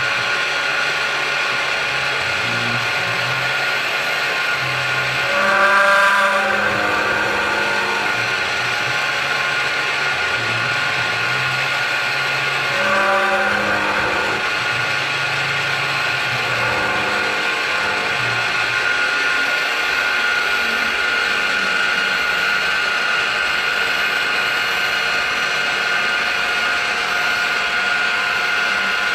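Precision Matthews CNC mill cutting 2-inch angle stock with an end mill: a steady cutting whine over the spindle running. Twice, about six and thirteen seconds in, the pitch sweeps down and back up, a little louder. The thinly clamped angle vibrates quite a bit in the cut.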